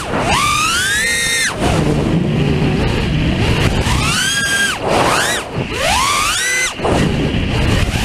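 Racing quadcopter's T-motor F60 brushless motors on 5S with HQ 5x4x4 props, recorded from the onboard camera. Their high whine sweeps up sharply and falls back about four times as the throttle is punched and released, over rushing prop and air noise.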